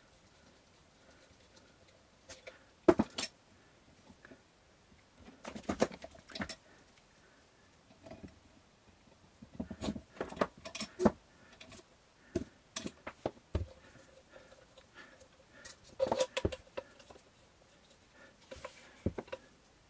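Small hard parts and tools being handled on a workbench: scattered sharp clicks and clatter in short clusters a few seconds apart.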